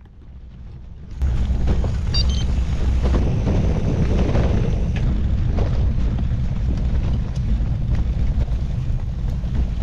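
Wind buffeting the microphone of a camera mounted on a moving gravel bike, with the bike's tyres rolling over a dirt and gravel track. It comes in suddenly about a second in as a heavy low rumble with scattered small clicks of grit and stones.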